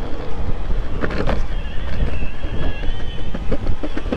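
A Boosted Board Stealth electric skateboard riding at speed: wind buffets the microphone and the wheels rumble on the pavement. A short knock comes about a second in. From about halfway a thin, wavering high whine rises over the rumble, with a run of quick light taps near the end.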